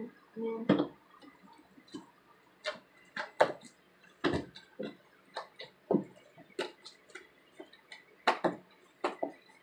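Thick, sticky slime being stirred and worked in a mixing container, giving irregular sharp clicks and short squelches as it pulls and pops.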